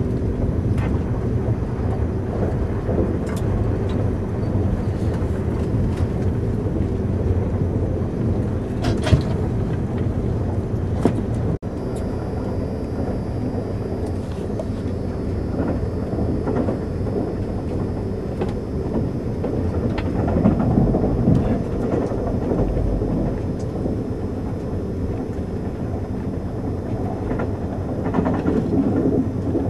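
Eurostar high-speed train running at speed, heard from inside the carriage: a steady low rumble of wheels on track, with a few faint clicks and a momentary break in the sound about a third of the way in.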